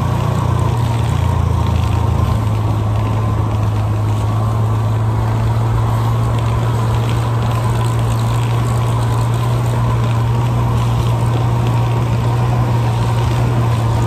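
Buran snowmobile's two-stroke engine running steadily under way, a constant low drone with no change in pitch.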